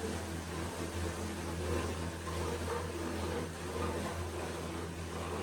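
Agaso electric meatball-dough grinding machine running steadily, its motor giving a low, even hum while it works meat and ice into bakso dough.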